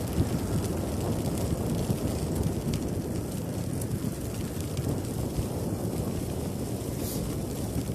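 Wind rushing over the microphone of a bicycle-mounted camera riding along a trail, a steady low rumble with a few faint ticks.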